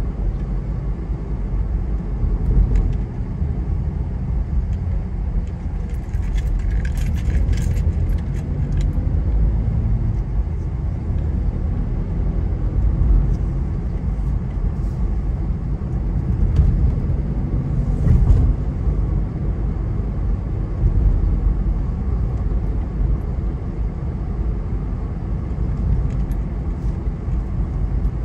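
Car driving along a town road, heard from inside the cabin: a steady low rumble of engine and tyres. A short patch of light clicking or rattling comes about six to nine seconds in.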